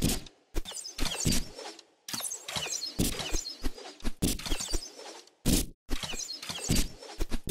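Arrows striking a target and the ground one after another, a run of sharp thunks coming a few per second with brief pauses, over birds chirping in the background.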